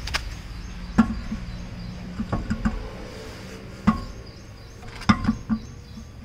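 Sharp knocks and clunks of a steel spare wheel being shifted by hand against the hub and wheel arch while it is lined up with the wheel studs, coming at irregular intervals, several in quick groups.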